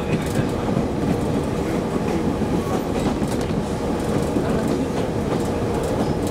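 Cabin sound of a KiHa 37 diesel railcar under way: a steady low rumble of the running engine and wheels with a constant hum, and now and then the clack of the wheels over rail joints.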